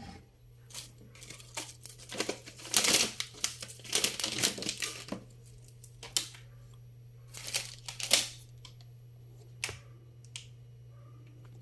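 Plastic packaging crinkling and rustling as it is handled and pulled open, in irregular bursts, busiest in the first half.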